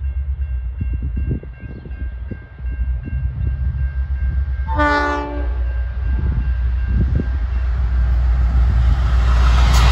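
V/Line N-class diesel-electric locomotive approaching with a passenger train. Its engine rumble grows louder, with one short horn blast about five seconds in and rising rail and engine noise near the end as the train draws close.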